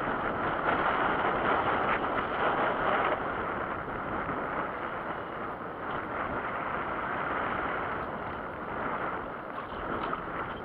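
Steady wind noise buffeting the microphone, with wind-driven chop washing around a small fishing boat; it eases slightly after about three seconds.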